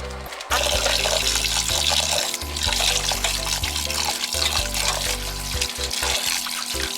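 Background music with a steady bass line, over water running steadily, which starts suddenly about half a second in.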